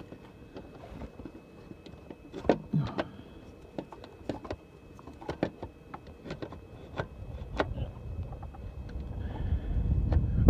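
Scattered knocks and clunks of the alternator being worked back into its mounting in the engine bay, several sharp strikes spread a second or so apart. A low rumble builds over the last few seconds.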